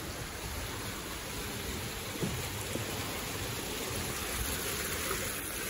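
Many small fountain spouts splashing into a shallow reflecting pool: a steady rush of falling water.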